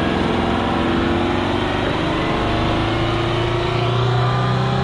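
Diesel engine of an Oshkosh HET 8x8 heavy wrecker pulling under load, its pitch climbing slowly as the truck gathers speed.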